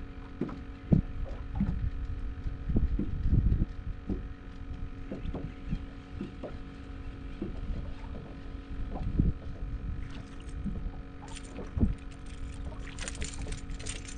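Small boat on choppy water, wavelets slapping the hull in irregular low knocks over a steady hum. Near the end, a fast run of rattling clicks as the hooked speckled trout is reeled up and swung out of the water.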